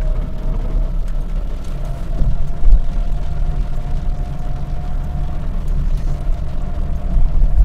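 Car cabin sound while driving on wet streets in rain: steady low engine and tyre rumble with a faint steady whine, and light noise of rain and the wipers on the windshield.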